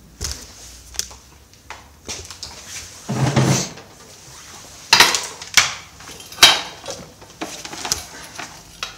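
Scattered sharp clanks and knocks of metal objects being handled, with a short rough scrape about three seconds in and the three loudest knocks close together past the middle.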